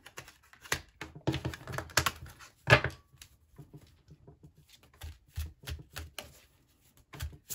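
A deck of oracle cards being shuffled by hand: an irregular string of quick clicks and soft slaps as the cards snap against each other, busiest in the first three seconds with the loudest slap about three seconds in, then sparser.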